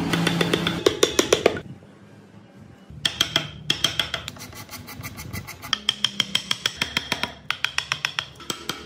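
Steel carving chisel tapped rapidly into wood, a quick even run of sharp clicks several times a second, with short pauses between runs.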